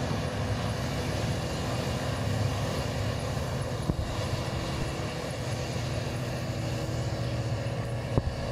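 Tracked combine harvester running steadily while harvesting rice, its engine and threshing machinery making a constant drone. A sharp knock sounds about four seconds in and another near the end.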